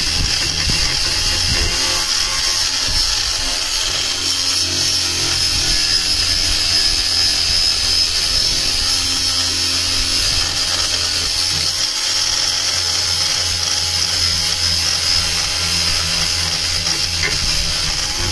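Angle grinder running steadily against a fiberglass panel, an even high-pitched grinding hiss.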